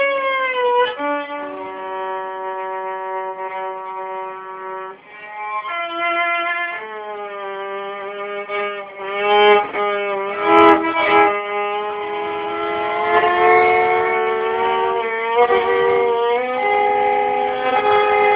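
Solo violin bowing held notes, often two strings at once, with sliding pitch glides, played to imitate racing cars and motorcycles.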